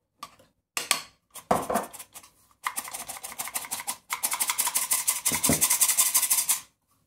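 Stainless steel squeeze-handle flour sifter being worked over a bowl: a few light clicks, then a fast, even run of scraping strokes as the wire agitator rubs flour through the mesh, stopping abruptly near the end.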